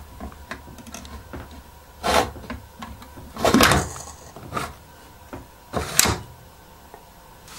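Multicooker's plastic-and-steel lid being set on the pot and closed: four clacks spread a second or so apart, the second one a longer scrape as the lid is seated.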